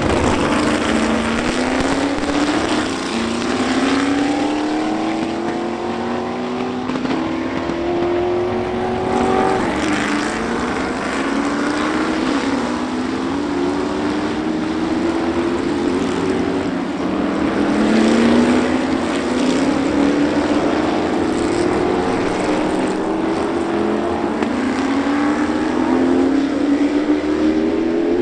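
Several Can-Am race cars, mostly big Chevrolet V8s, accelerating past one after another. The engine pitch climbs and drops back at each upshift, over and over.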